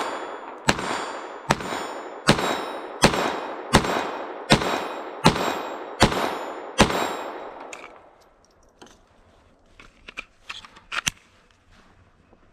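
Glock 44 .22 LR pistol fired in a steady string, nine shots about three-quarters of a second apart, each with a ringing echo. After a short pause come a few light metallic clicks and a clank.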